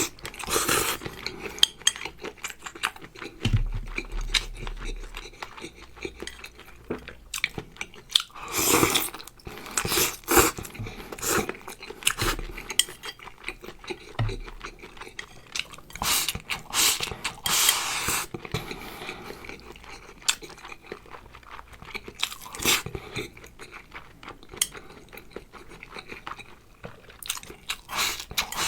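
A person eating prawns in sauce, chewing and crunching close to the microphone, with irregular clicks of chopsticks and cutlery against a dish.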